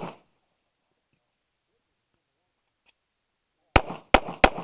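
A .45 ACP competition pistol firing a quick string of three shots, roughly three a second, near the end, each with a short ringing echo. At the start the echo of an earlier shot is dying away, and then there is a pause of about three and a half seconds between strings.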